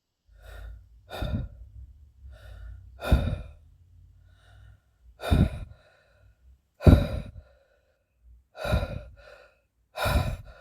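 A person's voice making a series of short breathy sighs and gasps, about eight of them with pauses between.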